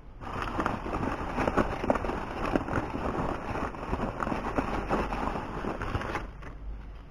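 Dense crackling and clattering from charcoal and broken rock being handled in a metal pan and from the opened charcoal bag. It starts abruptly and stops about six seconds in.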